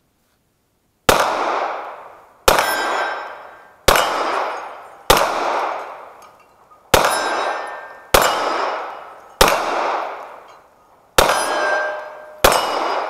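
Nine slow, deliberate shots from a 9mm semi-automatic pistol, about one every second and a half. Each shot is followed by a ringing that dies away over a second or more, typical of steel targets being hit.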